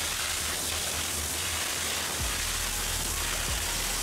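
High-pressure washer jet blasting water onto an excavator's steel crawler track and undercarriage: a steady hiss of spray with water splashing off the track.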